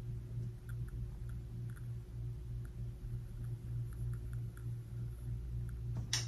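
Steady low electrical hum with a scatter of faint light clicks from a small box being handled, and a sharper click near the end.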